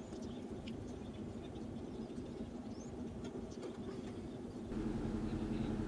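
Steady low hum with a few faint ticks and light scraping: small handling sounds as a tiny crisp waffle is rolled into a cone by hand and a miniature waffle iron plate is lifted. The hum steps up abruptly about three-quarters of the way through.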